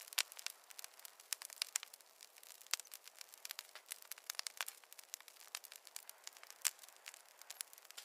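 Wood campfire crackling: a steady run of sharp, irregular pops and snaps, several a second, over a faint hiss.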